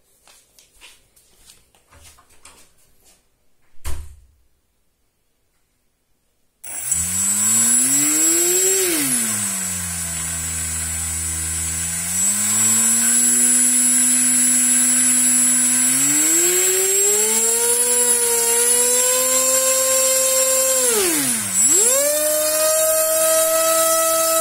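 A brushless outrunner motor (2206, 2300 kV) spinning a 3D-printed folding propeller, its whine and prop hum rising and falling with throttle. It starts about a quarter of the way in and climbs, drops back to a lower steady pitch, rises to a high steady pitch, dips sharply about three-quarters through and comes straight back up, with a steady high whine above it. Before it starts there are a few faint ticks and one sharp knock.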